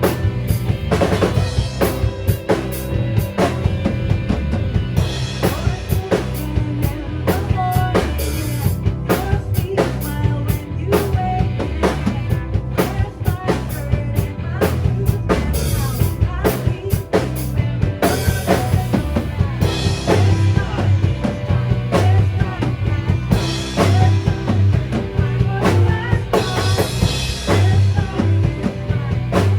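A rock band playing a passage without vocals. A drum kit keeps a steady beat with bass drum, snare and rimshot hits over bass guitar, electric guitars and keyboards.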